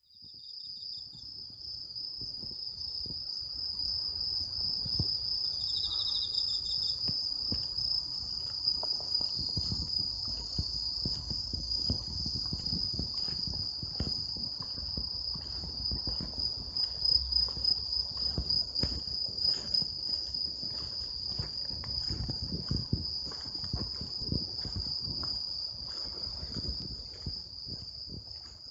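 Autumn night insects singing: one continuous high, even trill, with a second insect's shorter pulsed song joining briefly a few seconds in. Soft, irregular low thumps sound under the song throughout.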